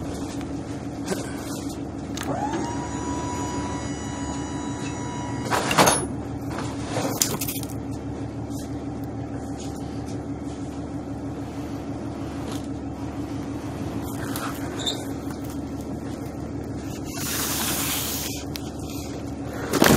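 Cardboard flat-pack furniture boxes being knocked about and slid across a truck bed, with sharp knocks about six and seven seconds in and long scraping slides near the end, over a steady low hum. A held whistle-like tone sounds for a few seconds early on.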